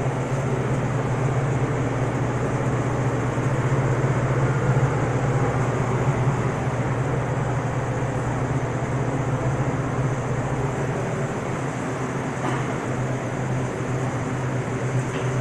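Refrigerated open display case running with a steady low mechanical hum and whir. It eases off a little near the end.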